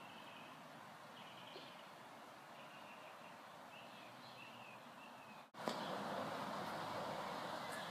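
Small birds giving short, high chirps several times over steady background noise. About two-thirds of the way in, the sound cuts out for an instant and comes back louder and noisier.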